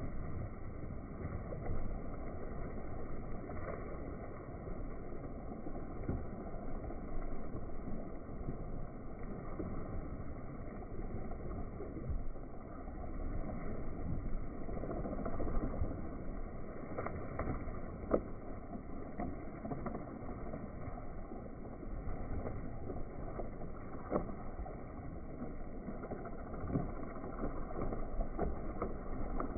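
Water gushing out of a large corrugated pipe and splashing into a pond as a load of small channel catfish is flushed through it: a steady, dull rush of water with faint splashes.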